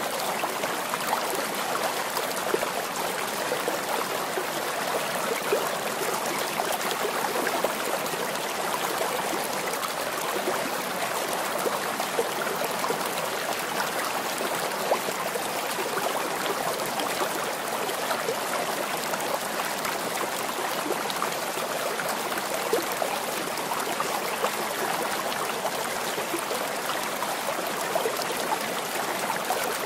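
Running water of a stream, trickling steadily without a break.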